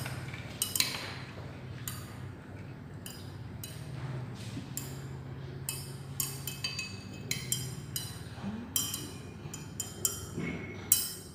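Glass stirring rod clinking irregularly against the side of a glass beaker while the ethanol, hydrogen peroxide, glycerol and water mixture is stirred until even, over a faint low hum.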